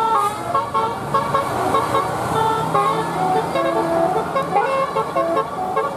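Bus telolet horn, a set of multi-tone air horns, playing a quick tune. Its short notes step up and down in pitch, with several tones sounding at once.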